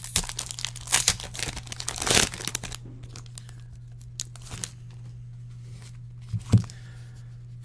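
Trading card pack wrapper being torn open and crinkled by hand, in dense bursts over the first few seconds, then quieter handling with a couple of sharp clicks near the end.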